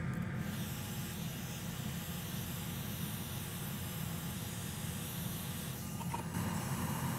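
Hot-air rework station blowing a steady hiss onto a graphics card's power inductor, reflowing its solder joints to re-seat it while the flux bubbles. A low steady hum runs underneath.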